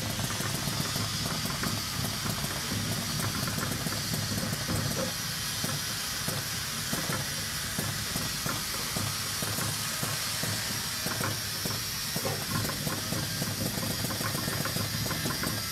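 A Weldo WD 600E-12B 12-colour PVC dispensing machine running as its needle head lays liquid PVC into label molds: a steady hiss over a low hum, with small irregular ticks throughout.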